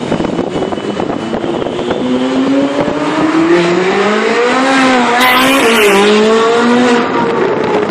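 Ferrari 458 Italia's 4.5-litre V8 with a loud aftermarket 'F1' exhaust accelerating hard, its note climbing steadily for about three seconds, dipping briefly at the top, then holding high before easing off near the end.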